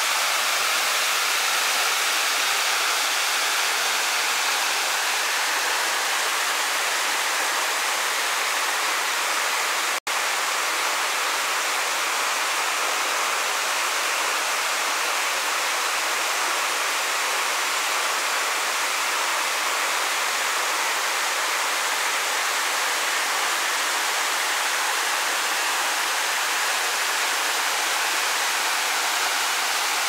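Waterfall pouring down a rock face onto rocks and a shallow pool: a steady, even rush of water with little low rumble. The sound drops out for a split second about ten seconds in.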